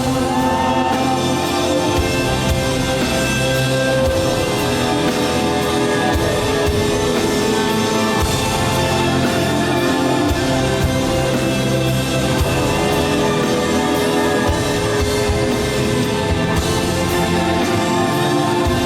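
Live band music: an instrumental passage with held notes and drum strikes, and no clear lead vocal.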